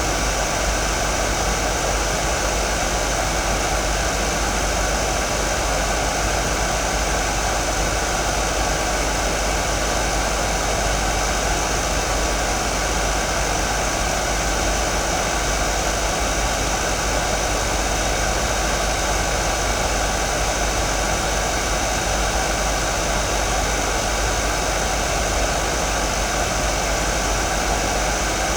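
Hair dryer running continuously: a loud, steady rush of fan and blown air with a faint steady whine under it, unchanging throughout.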